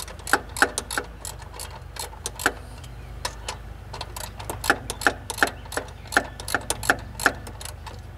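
Ratchet wrench clicking in short, uneven runs as it is swung back and forth, loosening the manual belt tensioner bolt on a Jeep 4.0 L straight-six, with a brief pause partway through.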